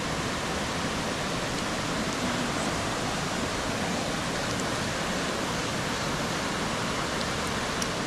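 Mountain stream flowing over rocks: a steady, even rush of water.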